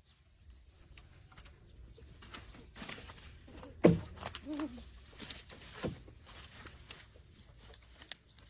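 A few short bird calls, one falling sharply in pitch about four seconds in, among scattered light clicks and knocks.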